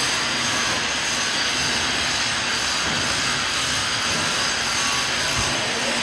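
A reactor agitator drive running under a water load trial: a loud, steady mechanical whir with a few high, fixed whining tones.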